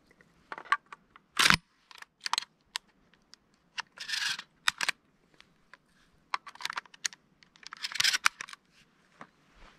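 Handling noise close to the microphone: a scatter of sharp clicks and taps, the loudest about a second and a half in, with short rustles of cloth or gear about four and eight seconds in.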